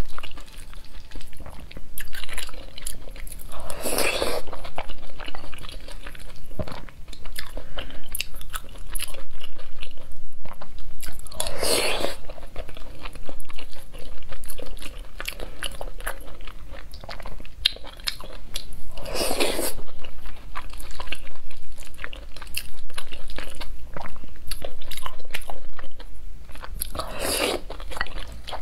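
Close-miked eating of mapo tofu over rice: continuous wet chewing and mouth noises, with four louder bursts about eight seconds apart.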